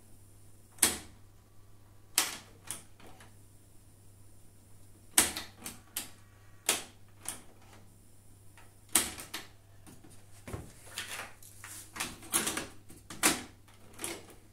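Sharp mechanical clicks of the cassette-deck transport buttons on an AIWA mini hi-fi being pressed, about fifteen of them at uneven intervals, over a low steady hum.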